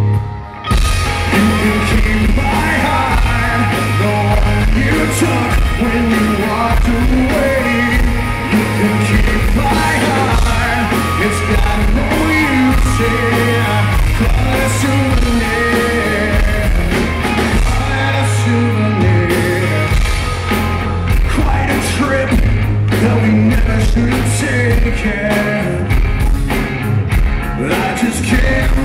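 Live rock band playing loudly, with a male lead singer, electric guitar, bass and drums, heard from the audience. The sound drops out very briefly about half a second in.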